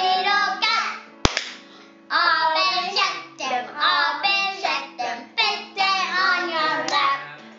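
Two young children singing a hand-action song together in a stop-start way, with one sharp hand clap about a second in.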